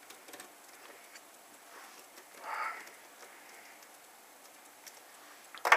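Faint small ticks of a precision screwdriver turning the back screws of a BlackBerry Pearl 8100's housing, with a brief louder noise about two and a half seconds in and one sharp click near the end.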